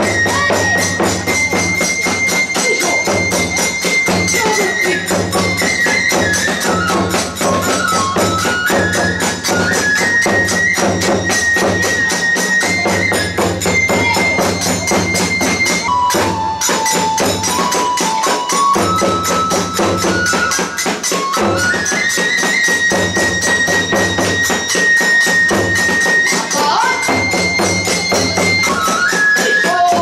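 Hiroshima kagura accompaniment: a bamboo transverse flute plays a stepping melody over fast, continuous strokes of small hand cymbals and drums, with a big drum beating steadily underneath.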